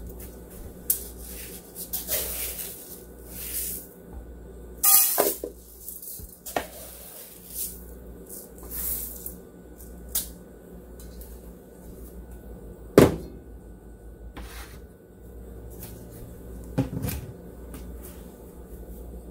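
Kitchen handling sounds: scattered clicks and knocks of utensils and dishes being set down and moved, with a few short scraping or rustling sounds in the first third. The loudest is a single sharp knock about two-thirds through, followed by another with a brief ring a few seconds later.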